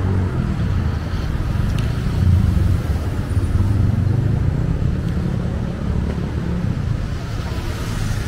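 Road traffic: motor vehicle engines running in a steady low rumble.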